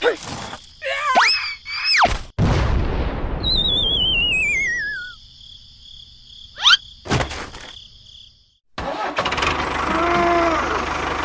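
A string of short sound effects: whistle-like tones sliding up and down, a burst of noise that fades out, and a wavering tone falling in pitch. After a brief silence, a small motor starts running steadily about nine seconds in.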